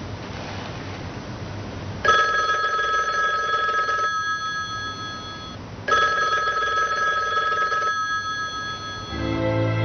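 A telephone ringing: two long, steady rings, the first about two seconds in and the second about four seconds later. Music comes in just before the end.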